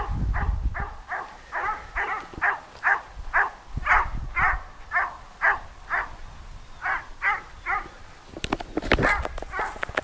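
A dog barking over and over, short sharp barks at about two to three a second in a steady run. About eight and a half seconds in, rustling and knocks on the microphone come over the barking.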